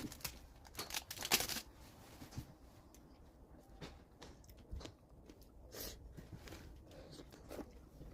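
Irregular crinkling, crunching and tapping handling sounds, with the loudest cluster of crackles about a second and a half in.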